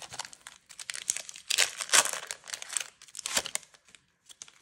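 Foil trading-card booster pack wrapper crinkling and crackling as it is handled, in bursts, loudest about two seconds in and again a little after three seconds.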